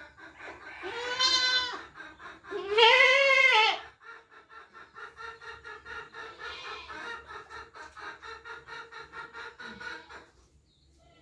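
A goat bleating twice, two loud, wavering calls in the first four seconds, the second louder. After them a softer pulsing sound, about five pulses a second, runs on until near the end.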